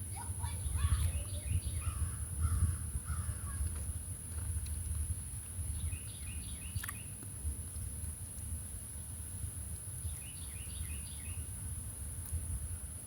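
A bird singing a short phrase of quick, high chirps, repeated about every four to five seconds, over a steady high-pitched insect drone and a low rumble.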